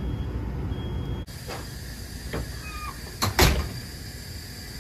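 A handheld gas monitor giving short high beeps about once a second. Then come a couple of brief squeaks and scrapes and a loud thump about three and a half seconds in.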